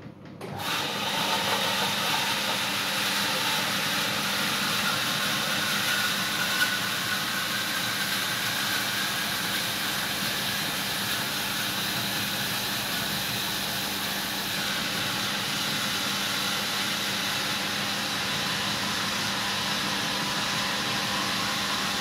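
Miele W 5873 Edition 111 front-loading washing machine in its final spin. The drum gets suddenly louder about half a second in, then whirs steadily at spin speed with a motor whine.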